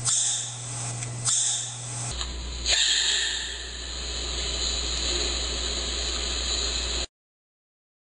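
Adult giant panda chewing bamboo: two sharp crunches about a second apart over a low hum, then a jolt and a steady hiss that cuts off suddenly near the end.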